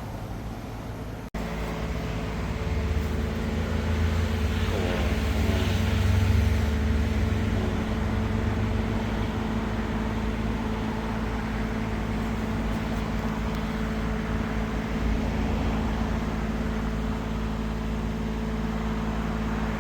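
An engine running steadily with a low rumble, swelling for a few seconds around five seconds in.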